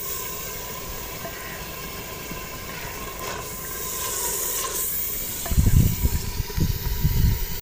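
Wood fire burning under a clay cooking pot: a steady hiss with a few faint crackles. From about two-thirds of the way in, a loud low rumbling comes and goes in uneven gusts.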